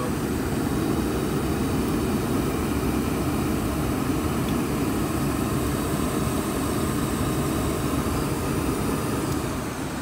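ICP Comfortmaker gas furnace running in low fire: a steady rushing noise from the lit burners and the furnace's fans.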